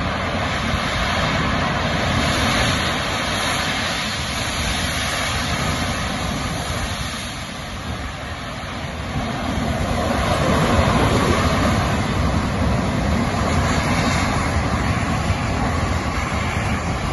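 Steady rush of gas blowing out of an uncontrolled well and burning as a jet of flame, growing louder about ten seconds in.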